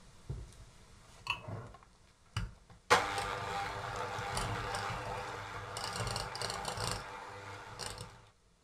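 Electric hand mixer beating butter and condensed milk into cream in a stainless steel pot: it starts suddenly about three seconds in, runs steadily for about five seconds and stops near the end. A few short knocks come before it starts.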